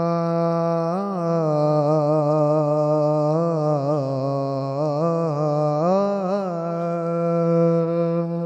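A male reciter singing one long wordless note, held steady, then swinging up and down in ornamented turns about a second in, through the middle, and again about six seconds in: a drawn-out melismatic vocal in the style of a sung Punjabi rubai.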